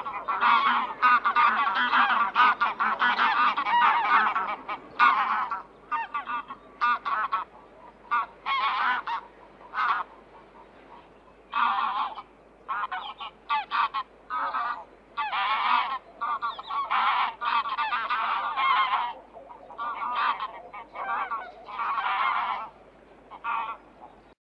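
Several geese honking, their calls overlapping densely for the first few seconds, then coming in short separate bursts with brief pauses between.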